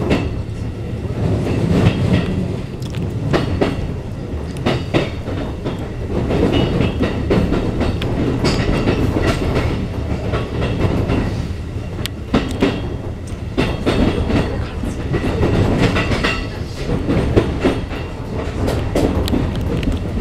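Keikyu 1500 series electric train running, heard from inside the car: a steady rumble of wheels on rail with frequent short clatters as the wheels pass over rail joints.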